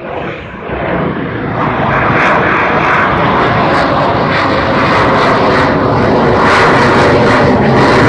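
F-35 fighter jet's single Pratt & Whitney F135 turbofan heard as it flies past, a dense jet noise that grows louder over the first two seconds and then holds loud and steady.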